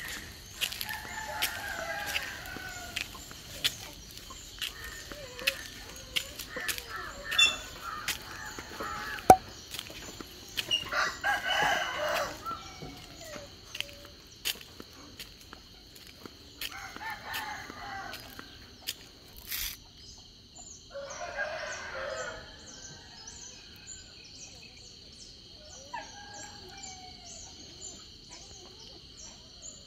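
A rooster crowing again and again, about six crows a few seconds apart, over a steady high whine. Small birds chirp in the later part, and scattered sharp knocks come through, the loudest about nine seconds in.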